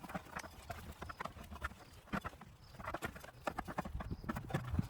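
Irregular light clicks and knocks of small metal parts being handled at the mower's rear axle.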